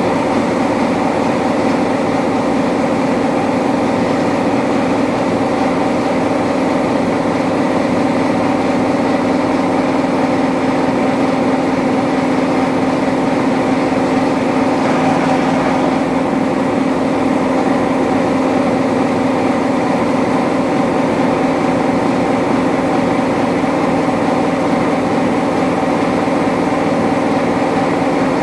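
A machine running at a steady speed: a constant hum with one strong low tone and several fainter higher tones, unchanging throughout.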